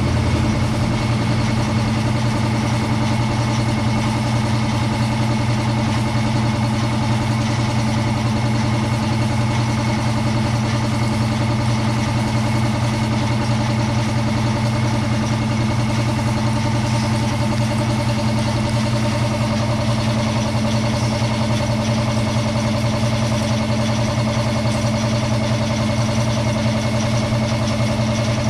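A machine running steadily with a constant, unchanging hum.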